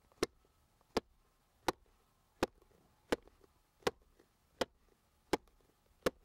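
Leather shoe holding a wine bottle knocked against a stone wall, nine sharp knocks in a steady rhythm about three-quarters of a second apart. The blows are working the cork up out of the bottle's neck.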